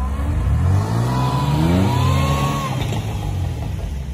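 Off-road vehicle's engine revving: its pitch climbs for about a second and a half, holds high, then drops back shortly before three seconds in.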